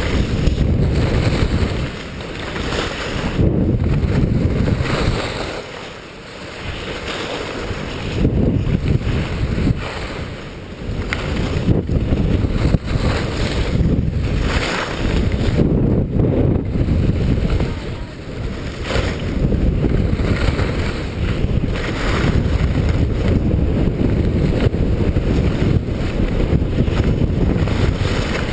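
Wind rushing over the microphone together with the hiss and scrape of skis on snow, swelling and easing irregularly as the skier turns through moguls.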